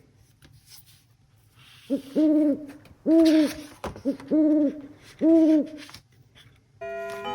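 Owl hooting sound effect: about six pitched hoots in two groups, each a short hoot followed by longer ones. Music starts near the end.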